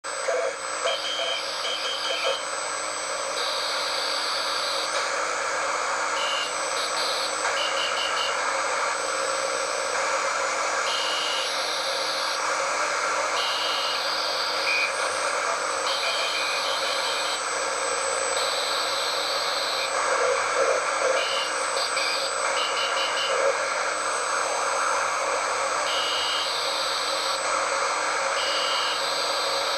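Shortwave radio static hiss with Morse code beeps keying a short group of letters over and over, which the listener reads as T A H, T I H or T H. It is played through a cheap radio's loudspeaker.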